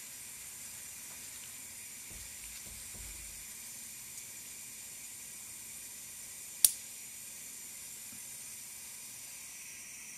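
A single sharp click about two-thirds of the way through as a spring-loaded disposable finger-prick lancet fires into a fingertip, drawing a drop of capillary blood for a blood glucose test. It sits over a faint, steady hiss.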